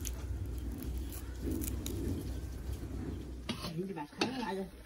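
Raw sugarcane being bitten and chewed, with faint crunches over a low steady hum.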